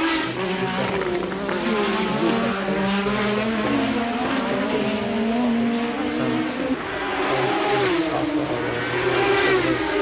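Formula One race car engines running at high revs, their pitch rising and falling repeatedly as the cars accelerate and brake, with several engine notes overlapping.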